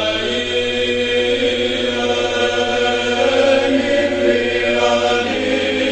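A choir chanting a hymn in long held notes, several voices sounding together.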